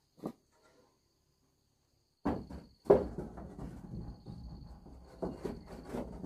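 Irregular knocks and clattering of handling or working with materials, starting suddenly about two seconds in over a low rumble, with a faint steady high insect chirr throughout.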